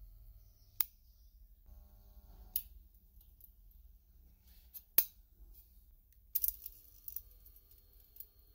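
Spot welder making welds on a sheet-metal seam: a series of separate sharp snaps a couple of seconds apart, with a quick cluster of them about three-quarters of the way through, over a low hum.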